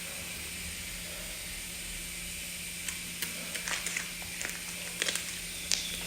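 Slime being squeezed so its air bubbles pop: a scattered run of small clicks and pops starting about three seconds in, over a faint steady hiss.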